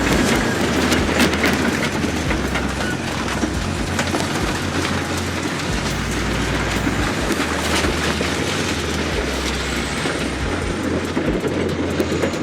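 Caterpillar D9H bulldozer running, its diesel engine rumbling and its steel tracks clanking as it rolls over and crushes motorcycles, with scattered sharp cracks of metal giving way.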